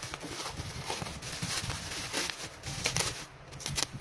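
Plastic bubble wrap crinkling and rustling as it is pulled open and peeled off a taped cardboard mailer, with irregular crackles.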